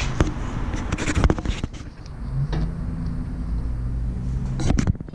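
Sharp metallic clicks and knocks as a sharpened lawn mower blade is handled and fitted back onto the mower, over a low steady hum.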